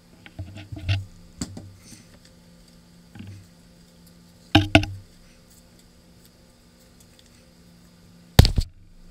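Handling noise of tools and sanding discs on a work surface: a few light taps and clicks, two sharp knocks about four and a half seconds in, and a louder thump near the end.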